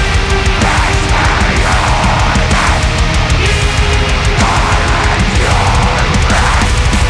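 Deathcore music: loud, dense heavy-metal band playing with fast, relentless drumming.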